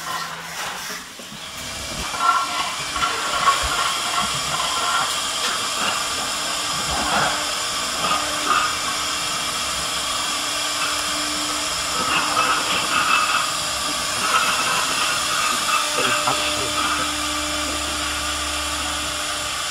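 CNC router spindles running and routing into wooden sheet: a steady hissing noise with a faint whine.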